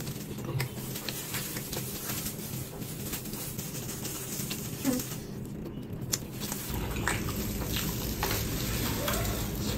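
Close-miked eating sounds: wet chewing and lip smacking with scattered sharp clicks, over a steady low hum that grows louder about seven seconds in.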